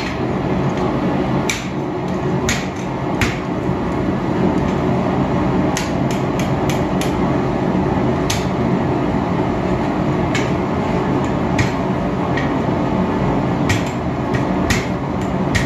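Blacksmith's hammer striking a bent steel bracket on an anvil: about fifteen sharp, ringing blows at an uneven pace, some in quick runs, over a steady low rushing noise.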